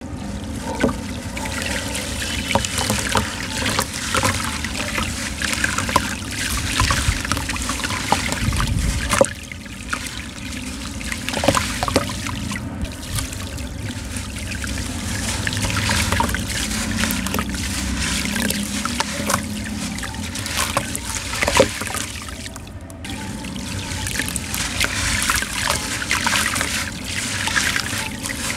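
A soaked sand-cement block crumbling in someone's hands over a tub of water, with wet sand and grit trickling and pouring into the water. Small sharp crackles of crumbling grit run through it.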